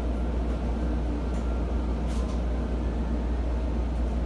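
Steady low hum of a Meitetsu 2200 series electric train standing at a station platform, with a couple of faint clicks.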